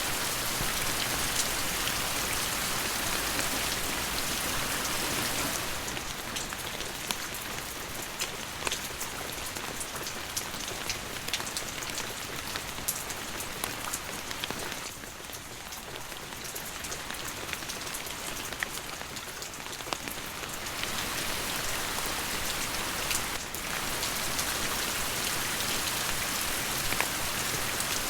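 Steady rain falling, a dense hiss of drops with many individual drop ticks; it eases a little after about six seconds and picks up again after about twenty.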